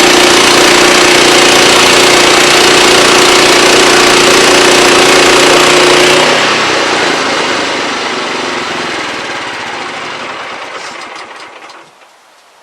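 Wood-Mizer LX25 portable sawmill running loudly and steadily, then shut off about six seconds in; the noise dies away gradually over the next six seconds before cutting to quiet near the end.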